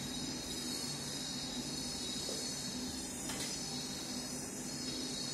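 Steady high-pitched ringing tones over a low hum, with a single light metallic clink about three seconds in as a serving spoon knocks against a steel pot.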